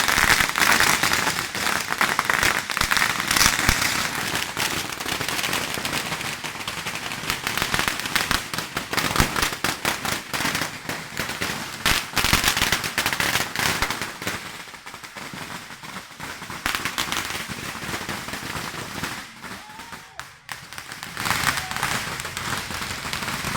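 A long string of firecrackers going off in a rapid, continuous crackle of bangs, thinning out to scattered, quieter cracks after about 14 seconds.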